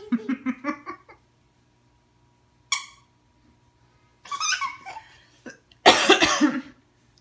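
Laughter in a quick string of short bursts at the start, then a short high vocal squeal, and a louder, breathy laughing outburst about six seconds in.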